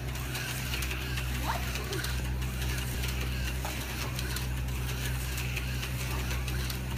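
Electric slot cars running on a plastic track, their small motors whirring and the cars rattling along the slots, over a steady low hum.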